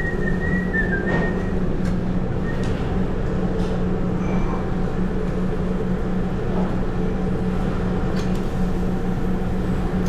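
Steady din of a working commercial kitchen, a constant low hum over a broad rushing noise, with a short high whistle in the first two seconds.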